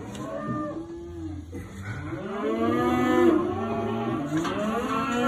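Cattle mooing: one call near the start, then several long calls overlapping from about two seconds in.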